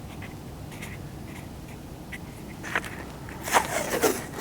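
Small handling noises from wires being sorted and labelled: faint light ticks, then a short scraping rustle about three and a half seconds in.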